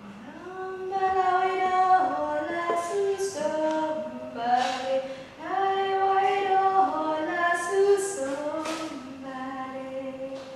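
A woman singing unaccompanied, holding notes that step up and down in two long phrases with a short break between them, and brief breathy hisses between some notes.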